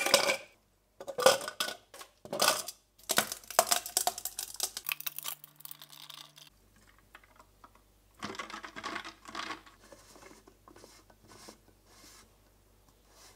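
Ice cubes dropped one by one into a plastic tumbler with sharp clinks, then a rattling clatter as more ice and bottled water go in. Later, ice clinks and rattles in the cup as the iced drink is stirred with a straw.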